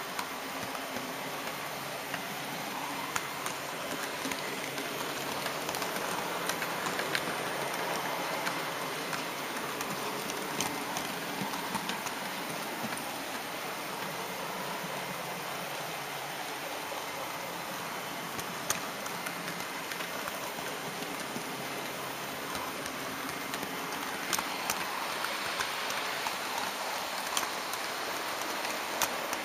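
HO-scale model train rolling along the track: a steady rushing noise of wheels on rail, with scattered sharp clicks as the wheels cross rail joints and turnouts, the clicks more frequent near the end.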